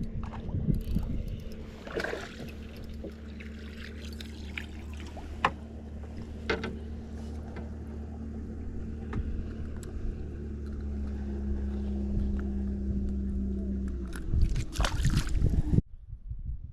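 A motor running steadily with a low hum, probably a boat engine on the water, its tone dropping slightly and growing louder about two-thirds through. A few sharp clicks and knocks sit over it, and the sound cuts off suddenly near the end.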